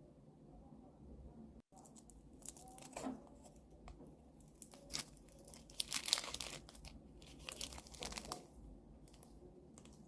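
Packaging being torn open and crinkled: a run of sharp crackling rips, loudest about six seconds in and again near eight seconds.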